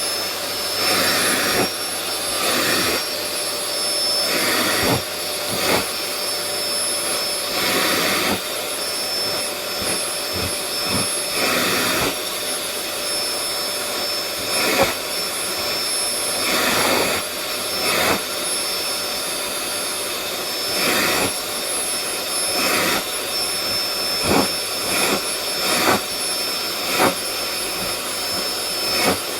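Vacuum cleaner running steadily, with a high motor whine over the rush of air. The sound surges briefly every second or two as the nozzle is drawn over the cat's fur.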